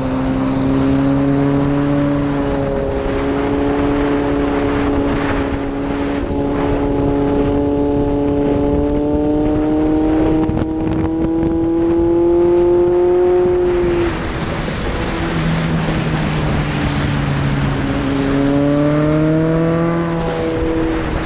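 Yamaha XJR1300's air-cooled inline-four engine under way, heard over wind and road noise. Its pitch climbs slowly under steady throttle for most of the first fourteen seconds, then drops suddenly. It climbs quickly again near the end and drops once more.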